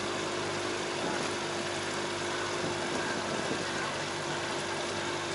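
Boat motor idling, a steady, even hum with one faint held tone.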